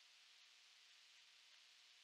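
Near silence: a steady faint hiss, the self-noise of a cheap action camera sealed in its waterproof housing.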